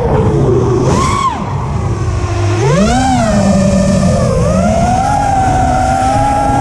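Brushless motors and propellers of a 5-inch FPV freestyle quadcopter whining, their pitch swooping up and down with the throttle: a quick rise and fall about a second in, a drop to a low drone around two seconds, a sharp climb near three seconds, then a fairly steady whine. Heard through the quad's own onboard camera, with wind rush underneath.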